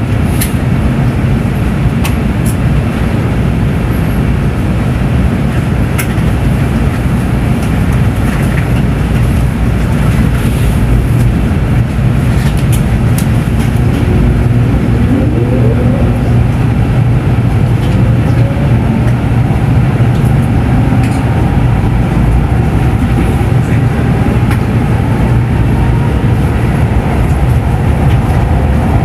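N700S Shinkansen train running, with a steady low rumble. A faint rising whine joins it in the second half.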